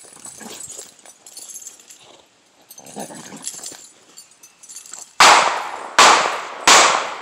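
Heavy chain rattling and dragging in the dirt as a chained pit bull tugs and shakes a rag. Near the end come three loud, sudden, sharp sounds, under a second apart.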